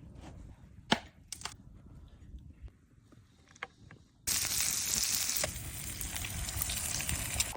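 A few sharp knocks, then about four seconds in, food goes into a hot pan and starts sizzling loudly, easing off slightly towards the end.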